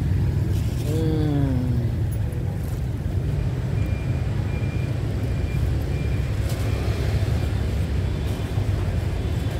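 Steady low rumble of a motorbike engine idling amid street traffic, with faint, short high beeps repeating in the middle.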